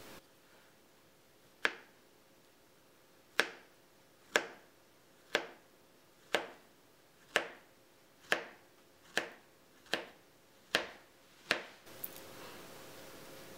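Knife slicing through a peeled banana and clicking against a marble board: eleven sharp taps, about one a second.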